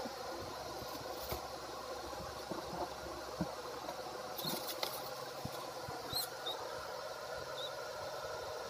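Live white feeder mice squeaking: a handful of short, high squeaks from about halfway in, a few more near the end. Light scuffling clicks and a steady background hum sit underneath.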